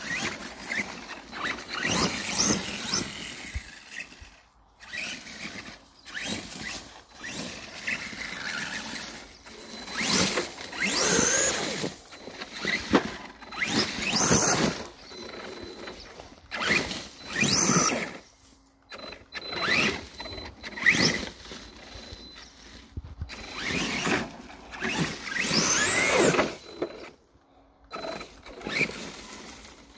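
An electric RC monster truck's motor and gears whining in repeated bursts of throttle, the pitch rising and falling with each burst as it drives over dirt and through brush.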